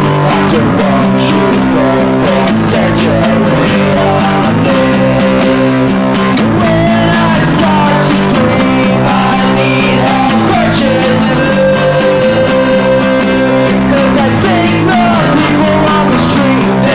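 Rock song with strummed guitars and bass guitar and a melody line over them, playing steadily throughout.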